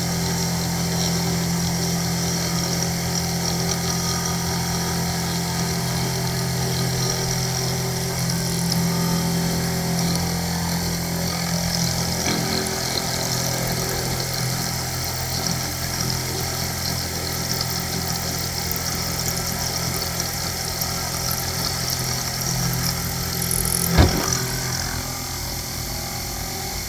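Sherline benchtop milling machine running steadily with a hum from its spindle motor while the end mill cuts a keyway slot in metal. A single sharp knock comes near the end, after which the sound drops slightly.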